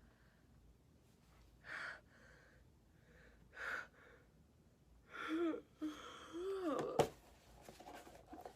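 A congested woman's sharp gasping breaths: two short inhales, then a run of voiced gasps that glide up and down in pitch. A short, sharp sound about seven seconds in is the loudest moment. It is the build-up of a sneeze.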